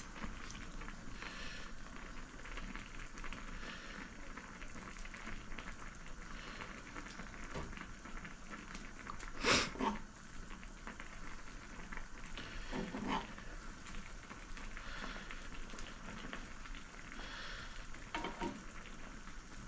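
Instant ramen with an egg simmering in a pan on a gas stove, a soft steady bubbling, while a metal spoon stirs it. The spoon knocks against the pan a few times, loudest about halfway through.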